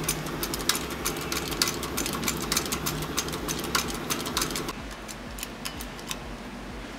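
Irregular light metallic clicking and ticking as a steel socket and a new pump-shaft bearing are handled and set under a hydraulic shop press, over a steady low hum that stops about two-thirds of the way through.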